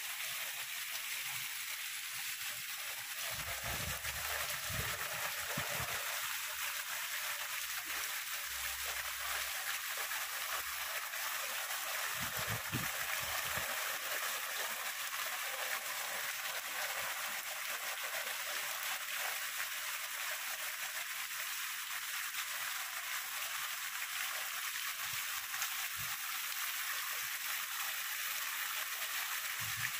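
Heavy downpour: a steady hiss of rain, with water pouring off a roof edge and splashing onto gravel below. A few dull low thuds in the first half.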